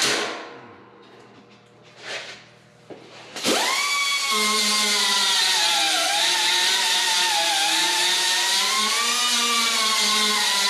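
A sharp knock at the start, then an air-powered grinder spins up about three and a half seconds in and runs with a steady high whine and hiss, its pitch dipping and wavering as it grinds the steel grill of a Farmall M tractor.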